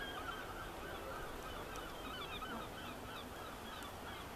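Birds chirping and twittering, many short calls overlapping, with a faint low rumble beneath.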